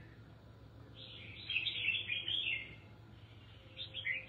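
Red-whiskered bulbul singing: a run of bright chirpy notes from about one second in to nearly three seconds, then a short phrase near the end.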